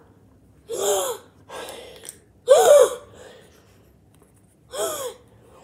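A child's voice making three short, breathy gasping sounds, each with a pitch that rises and falls, spaced about two seconds apart.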